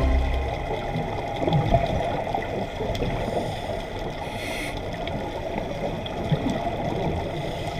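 Muffled underwater sound: a dull, even rumble of water moving past the recorder with bubbling from the scuba divers' exhaled air, including a short hissing burst of bubbles about four and a half seconds in.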